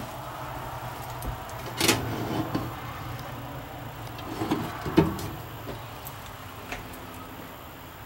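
A few knocks and clatters, the loudest about five seconds in, over a low steady hum.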